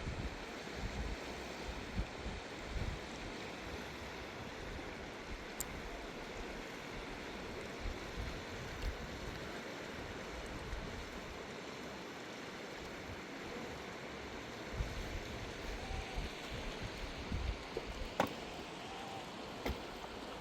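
Steady rushing of a flowing river, with uneven low rumbles and a few sharp clicks.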